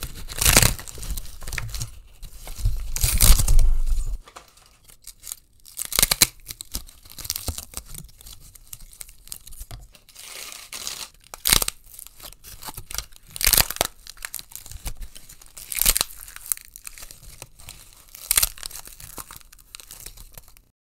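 Paper and cardboard IKEA furniture packaging being crushed: loud crunching and crackling, heaviest in the first few seconds, then a sharp crunch every two to three seconds with softer crinkling in between.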